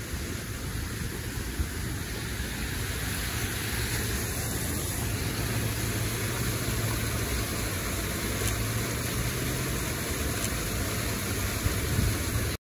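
Steady rushing of water from a rock waterfall cascade, with a low hum of road traffic underneath. It cuts off suddenly near the end.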